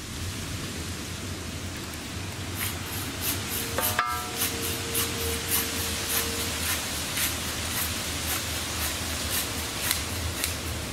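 Firewood being cut by hand: a regular run of short, sharp strokes, about two to three a second, over a steady hiss, with a brief faint tone about four seconds in.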